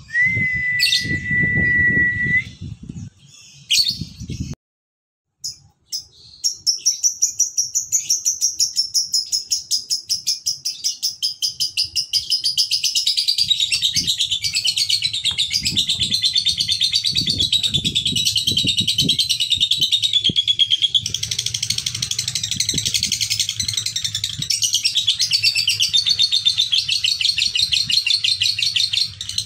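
Male lovebird in a long, unbroken 'ngekek' chatter: a fast, evenly repeated run of high, shrill chirps that keeps going without a break. It starts after a brief steady whistle-like tone and a short gap near the beginning. Keepers play this kind of song as a 'pancingan' lure to set other lovebirds chattering.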